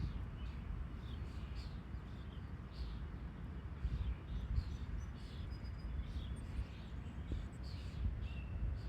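Birds chirping: many short calls scattered throughout, over a steady low rumble.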